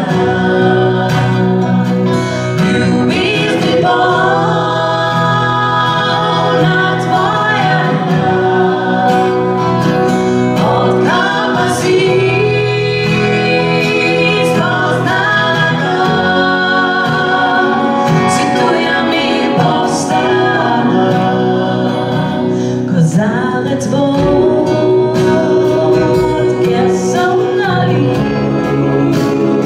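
Live band music: a mixed choir and a lead singer singing together with acoustic guitars, bass guitar and drum kit.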